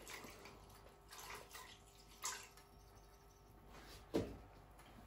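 Whole milk poured from a metal measuring cup into a pot of water, a faint splashing trickle. A short click a little past two seconds in and a sharper knock about four seconds in.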